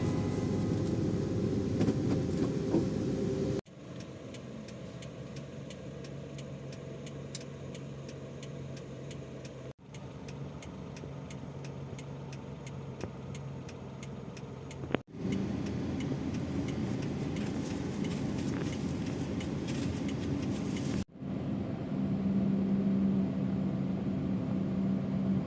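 Car running down the road: steady engine and road noise, in several short clips joined with abrupt cuts, with a faint regular ticking in two of them.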